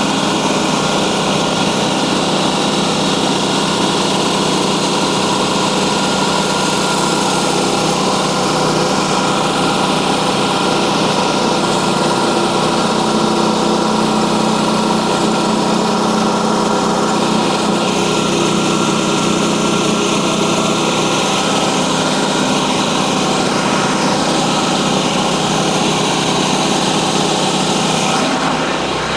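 Portable bandsaw sawmill's small engine running steadily, driving the band blade through a hardwood log.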